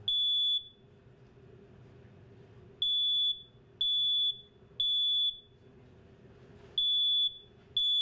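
Smoke alarm sounding while its test button is held: loud, high-pitched beeps about half a second long, in groups of three with a short pause between groups. This is the temporal-three evacuation pattern, described as a jarring sound meant to wake people at night.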